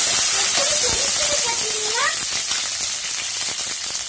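Hot oil sizzling steadily in a non-stick pan as a South Indian tempering fries: mustard seeds, urad and chana dal, round dried red chillies and curry leaves. The sizzle eases off slightly as it goes.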